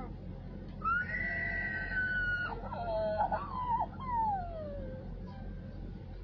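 A high, whinny-like voiced cry: one long held note, then a wavering stretch, then a long slide down in pitch, over a steady low hum.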